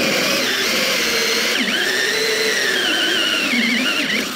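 Cordless drill driving a hole saw through the roughly 6 mm plastic wall of a tank. It runs steadily under load with a wavering whine from the saw cutting the plastic, then stops near the end once the hole is cut.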